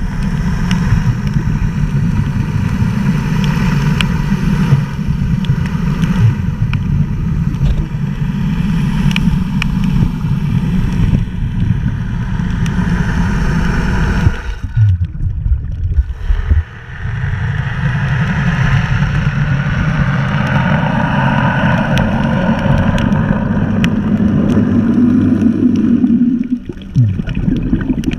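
Small boat's motor running steadily under loud rumbling wind and water noise on the microphone. The sound drops away briefly about halfway through and again near the end.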